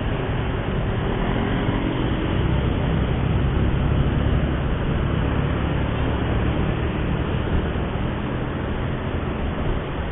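Steady road noise of a vehicle on the move in traffic: engine running under a continuous rushing noise, with no single event standing out.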